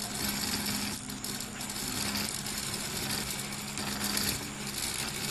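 Stepper motors salvaged from an old printer drive the pen carriage of a homemade CNC plotter. They make a steady mechanical hum that cuts in and out every second or so as the moves start and stop.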